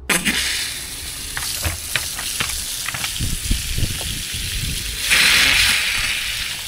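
Water rushing out of an Aquor hot-and-cold wall hydrant's hose connector and splashing over a hand as the valve is opened. The hiss starts suddenly, with a few knocks from handling, and grows louder about five seconds in.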